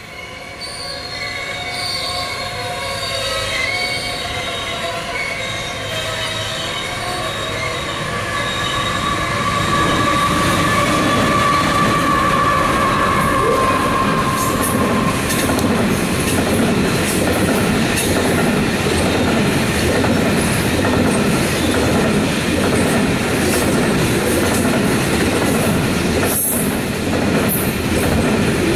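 Container freight train rolling past, its wagon wheels squealing on the rails in several thin, steady high tones through the first half. The squeal fades, leaving a louder, steady rumble of wheels as the container wagons go by.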